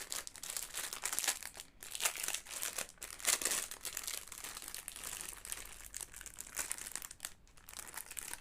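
Packaging crinkling and rustling in the hands as a small product package is handled and opened, with irregular crackles throughout.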